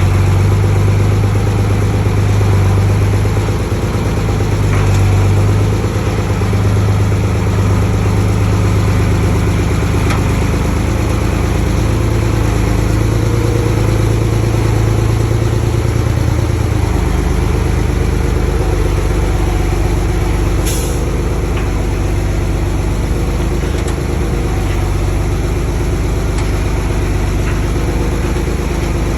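Heavy diesel engine of earthmoving machinery running steadily, its low hum shifting down about two-thirds of the way through. A brief high-pitched hiss or squeal comes near the end.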